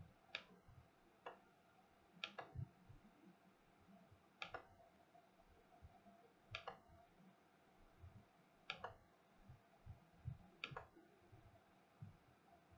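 Faint sharp clicks, about one every two seconds, over an otherwise near-silent background with a few soft low thuds.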